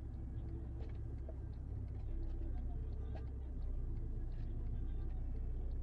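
Steady low rumble of a car in motion, engine and road noise, with scattered faint light ticks.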